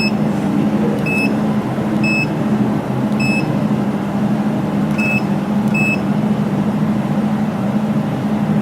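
Laser jewelry welding machine's control panel giving six short electronic beeps, at irregular spacing in the first six seconds, as keys are pressed to set the welding parameters. Under the beeps the running machine gives a steady low hum.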